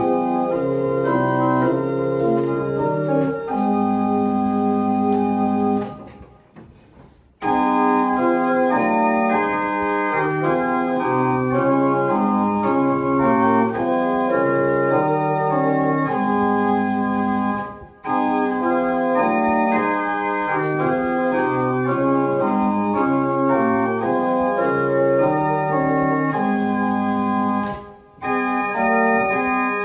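Small wooden chamber organ playing chords of held, steady notes, with a pause between phrases about six seconds in and brief breaks later on.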